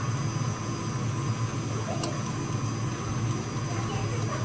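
Electric mixer running steadily, beating cake batter as flour and milk are added in turns.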